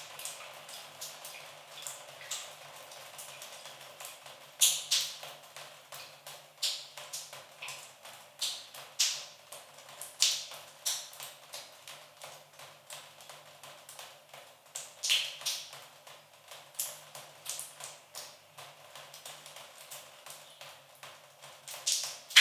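Water dripping and pattering: irregular sharp drops and taps at uneven intervals over a faint hiss, a few landing much louder than the rest.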